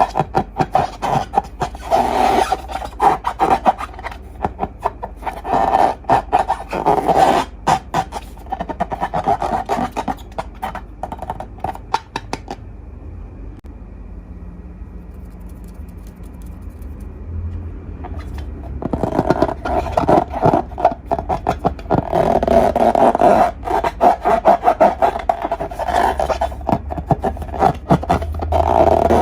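Long rubber balloons and slime being squeezed and rubbed by hand, a rapid crackly, squeaky rubbing in bursts, with a quieter stretch about halfway through.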